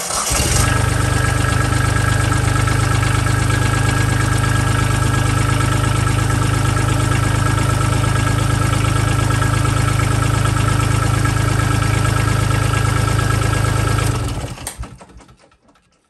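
Kubota tractor's diesel engine starting and idling steadily, then shut off about two seconds before the end, running down over about a second.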